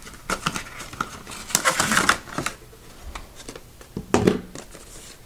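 Stiff clear plastic packaging tray crackling and clicking in irregular bursts as hands flex and pry it to work a webcam free, loudest about two seconds in.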